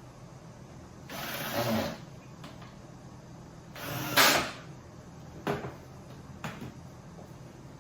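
Drawer parts being slid together along a slot or rail: two sliding scrapes about a second long, then two sharp knocks as the pieces seat.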